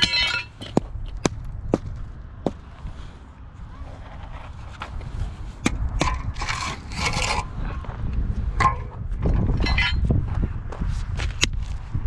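Scattered sharp knocks and clicks with a few longer scrapes, over a steady low rumble.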